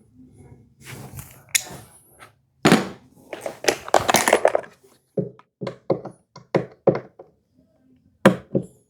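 Wooden knocks and sharp clicks from hand-fitting the drawer pull to the wooden unit and turning its screw by hand: a few separate knocks, a busier stretch of handling, then a quick run of clicks about three a second, and two more knocks near the end.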